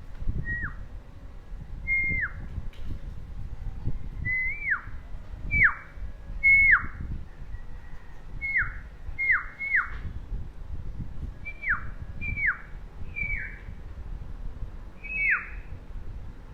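Baby budgerigar giving short whistled calls, each dropping sharply in pitch, about a dozen at irregular intervals. A low rumble with a few knocks runs underneath.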